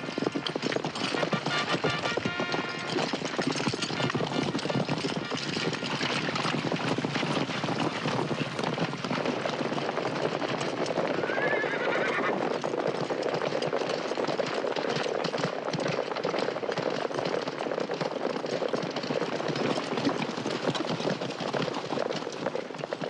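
Horses' hooves clattering steadily, with horses neighing, including a short whinny about halfway through.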